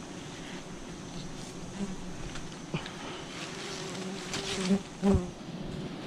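A swarm of wild honey bees buzzing steadily around their nest while it is being harvested, with a few brief rustles and a thump about five seconds in.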